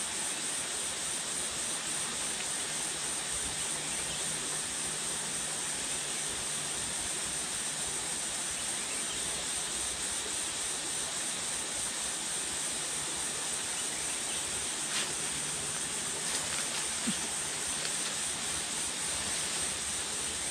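Insects droning steadily in a high, even buzz, with a few faint clicks in the second half.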